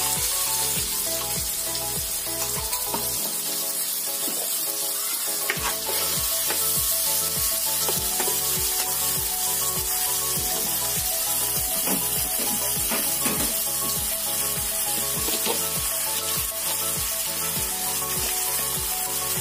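Wet ground tomato, green chilli and coriander masala sizzling in hot oil in a frying pan, stirred with a steel spoon that now and then clicks against the pan. A steady low beat of background music runs underneath.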